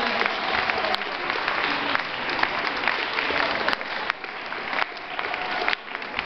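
Audience applauding, a dense patter of many hands clapping that thins a little in the last couple of seconds.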